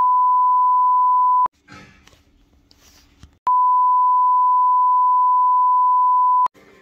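Two long electronic bleeps at one steady high pitch, a pure sine tone switched on and off with a click. The first runs for about a second and a half, and the second starts about three and a half seconds in and lasts about three seconds. Faint background noise fills the short gap between them.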